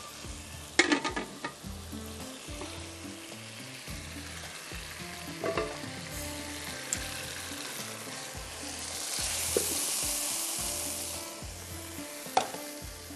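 Potato masala sizzling in a hot wok, the sizzle swelling loudest about nine to eleven seconds in. A few knocks of a utensil on the pan: one about a second in, one midway and one near the end.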